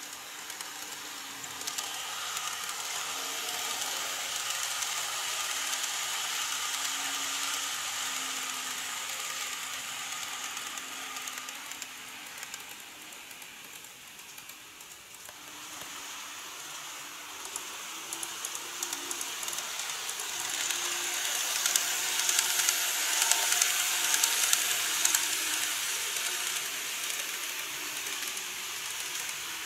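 N-gauge model electric train running on the layout's track: a rattling rush of wheels on rails with a faint motor whine. It swells, eases off about halfway through, then swells again louder with sharp clicks as the train comes round the curve near the end.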